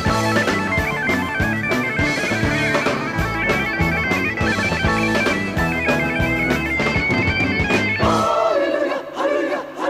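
Rock band playing, with a sustained, reedy synthesizer lead over drums and bass. About eight seconds in the band cuts out and several male voices sing together in choir-like harmony.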